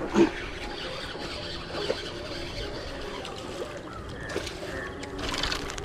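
Steady outdoor background noise, with a short louder burst of noise near the end.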